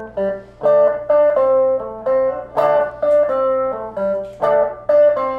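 Electric guitar played clean through a small practice amp, picking a bright melodic intro line of plucked notes, about three a second.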